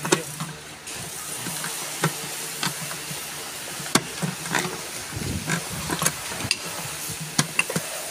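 Scattered small clicks and taps of pliers and hand tools on the plastic and metal top of a jacuzzi air blower's motor housing as it is taken apart, over a steady hiss. There is a brief low rumble about five seconds in.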